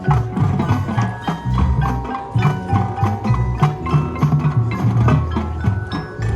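Marching band music with the percussion section to the fore: many quick pitched strikes from mallet keyboards over drums.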